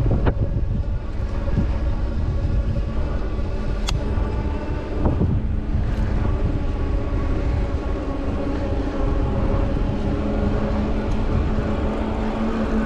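Wind rushing over the handlebar camera's microphone on a moving fat-tire e-bike, with a low rumble and a steady hum from the bike's motor and tyres as it rolls along. There is a single sharp click about four seconds in.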